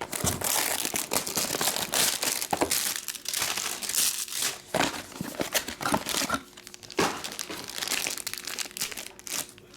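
Crinkly plastic wrappers of trading card packs being torn open and handled, an irregular crackling and rustling with brief pauses.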